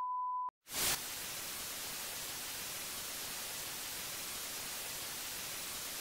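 A steady test-tone beep, the reference tone that goes with colour bars, cuts off about half a second in. After a short gap comes a steady hiss of TV static, loudest right at its start.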